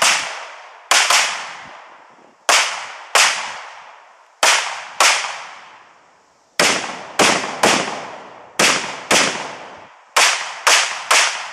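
Semi-automatic gunfire during a timed stage: about fourteen shots, mostly in quick pairs half a second or so apart with pauses of about a second between pairs, each shot ringing out in a long echo.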